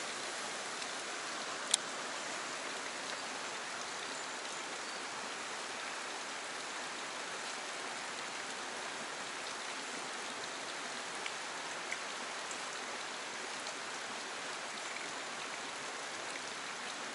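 Steady, even hiss of running water, with a single sharp click about two seconds in.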